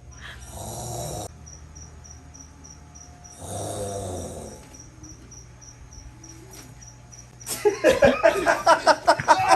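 A man fakes snoring with two long snores, each about a second, one near the start and one around four seconds in. Near the end a loud voice breaks in.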